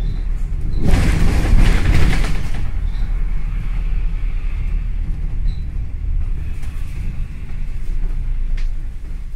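Low, steady rumble of a bus running, heard from on board, with a loud rushing burst about a second in that lasts about two seconds.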